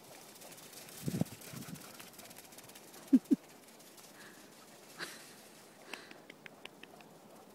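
A person's short breathy huffs close to the microphone: a couple of soft ones about a second in and two louder ones in quick succession a little after three seconds, over a faint steady hiss with a few light clicks.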